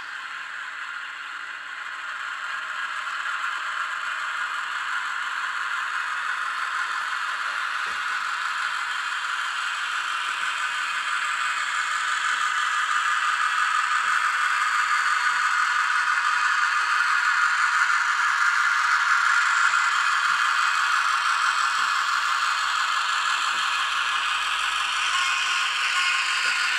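Jouef model draisine running with its ESU LokSound decoder playing a rattling small-engine sound through a tiny speaker in the cab floor, mixed with the model's running noise on the rails. It grows steadily louder as the draisine approaches.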